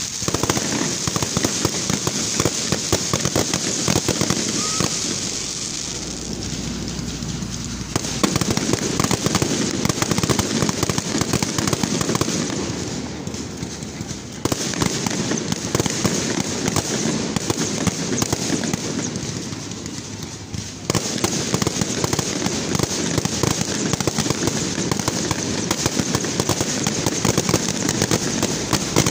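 Fireworks display going off in rapid succession: a dense run of bangs and crackles that eases off three times and comes back abruptly.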